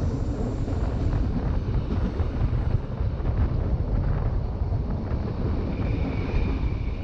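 Rhaetian Railway ABe 8/12 'Allegra' electric railcar running along the track: a steady low rumble of wheels and running gear, with a faint high whine coming in near the end.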